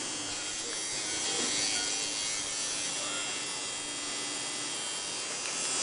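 Electric tattoo machine buzzing steadily as the needle works into the skin of a forearm.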